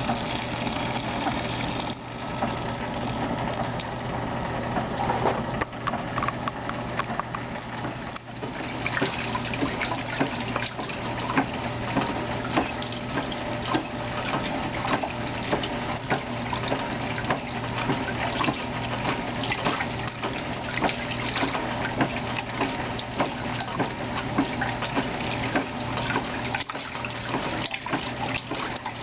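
Electric wringer washing machine running, its motor giving a steady hum while the agitator churns clothes through the water in the tub, with continual sloshing and splashing. For the first several seconds wet clothes are passing through the powered wringer rollers before the tub agitation takes over.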